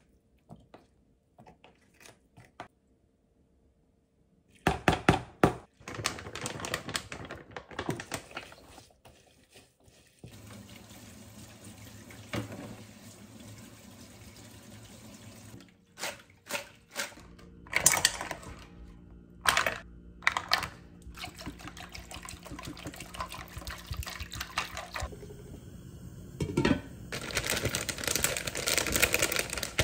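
Tap water running into a stainless-steel sink while mussels are scrubbed with a brush in a plastic colander, with scattered knocks and clatters. It is preceded by a loud run of clatters, and near the end comes a dense dry rustle as dried seaweed is shaken from a plastic bag into a glass bowl.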